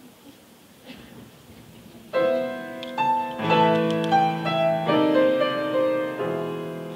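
Grand piano playing the introduction to a show tune, entering with a loud chord about two seconds in and going on with sustained chords and a moving upper line. Before it comes a couple of seconds of quiet hall.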